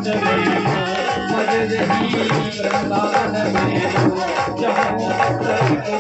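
Instrumental interlude of a Hindi devotional aarti song: melody instruments over a steady, even percussion beat.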